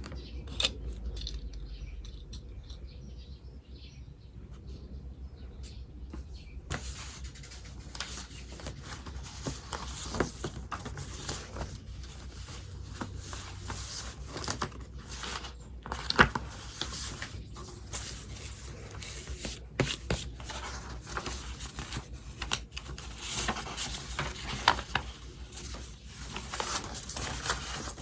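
Writing on paper: a pen scratching in quick, irregular strokes with occasional louder taps, starting about a quarter of the way in and continuing steadily. Faint bird chirps sit behind it.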